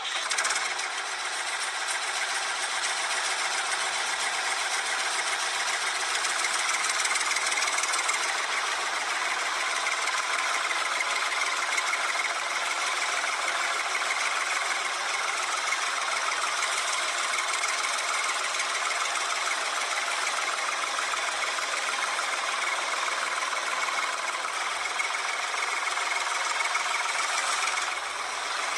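A motor running steadily with a dense, rattling buzz that holds the same pitch and level throughout.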